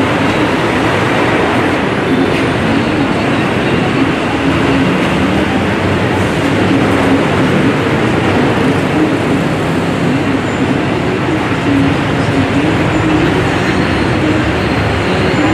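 Loud, steady rumble of street traffic.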